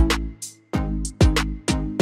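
Background music with a steady beat: drums and a bass line, about two beats a second.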